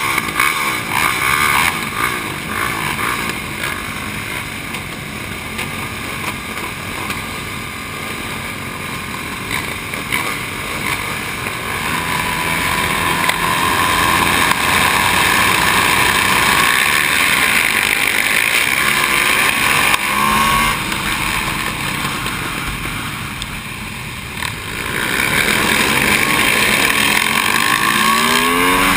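Supermoto race motorcycles running hard in a pack, heard from on board, with the camera bike's Aprilia SXV V-twin close up. The engines get louder about halfway through, ease off briefly near the end, then the revs climb again.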